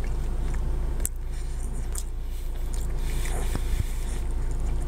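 A person chewing a mouthful of cinnamon roll, with a few small mouth clicks, over a steady low hum inside a car.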